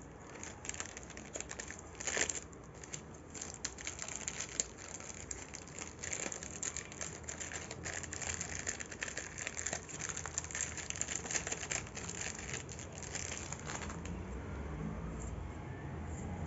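Plastic packaging crinkling as it is handled: a dense run of irregular crackles that thins out near the end.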